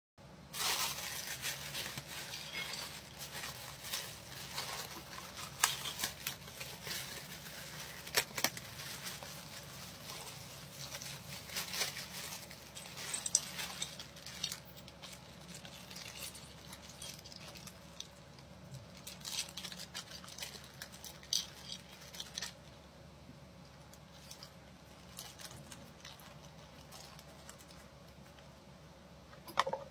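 Plastic packaging crinkling and rustling as it is unwrapped and handled, with many sharp crackles; busiest in the first half, fainter over the last several seconds.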